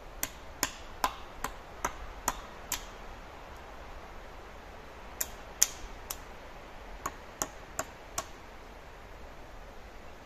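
Sharp blows of a hand tool striking wood, in three quick runs: about seven blows, a pause, three more, then four, at roughly two to three blows a second.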